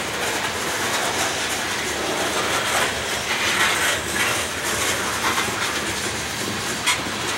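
Freight train of covered hopper cars rolling by, steel wheels clicking over rail joints above a steady rumble and rattle, with one sharp click near the end.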